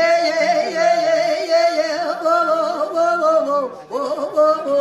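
A man singing a Telugu golla chaduvu folk ballad in a high, held voice whose pitch wavers. The line falls away and breaks off a little before four seconds in, and a new phrase begins.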